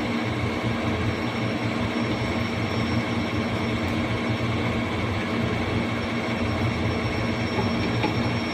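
CNC machine running with a steady hum and a few steady higher tones over it.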